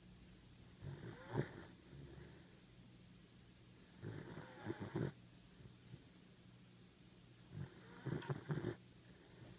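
A 14-week-old German Shepherd puppy snoring in its sleep: three snores about three and a half seconds apart, each lasting about a second.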